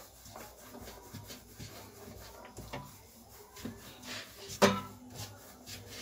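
Hands rolling a ball of dough into a log on a wooden chopping board: soft rubbing with scattered light taps. There is one sharper, louder knock about three-quarters of the way in.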